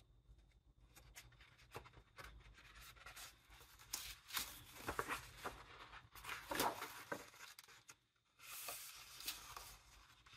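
Pages of a large hardcover illustration book being handled and turned by hand: paper rustling and sliding, loudest in the middle, with a short pause and then softer rustling near the end.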